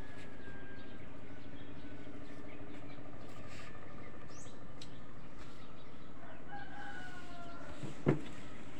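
A rooster crows once, about six seconds in, for over a second, over a steady low hum. A single sharp knock near the end is the loudest sound.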